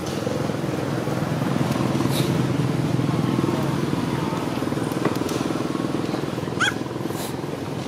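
A small motor runs steadily with an even low hum, and there is a short rising squeak near the end.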